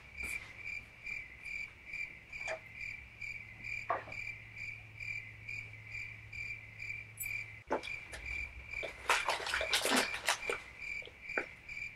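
Cricket chirping steadily, a high pulsing trill about twice a second. A few soft clicks, and a burst of rustling and knocks about nine seconds in.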